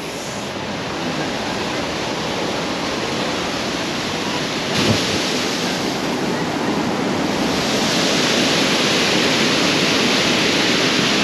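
Waterfall pouring over stacked rock into a pool, a steady rushing that gets louder about two-thirds of the way through. A brief knock about five seconds in.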